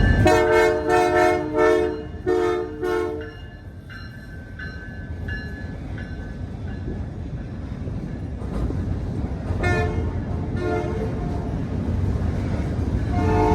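A diesel locomotive's multi-chime air horn sounds several short blasts. A fainter ringing repeats about one and a half times a second, then the rumble of the passing train builds as the horn sounds again in short blasts near the end.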